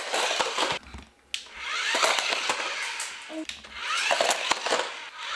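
Toy remote-control car's small electric motor whirring in two spurts of about two seconds each, with a few clicks and knocks.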